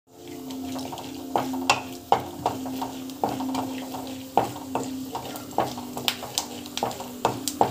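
Peanuts frying in a little oil in a pan while a wooden spatula stirs them: a sizzling hiss with repeated sharp clicks and knocks as the spatula scrapes the pan and moves the peanuts. A steady low hum comes and goes underneath.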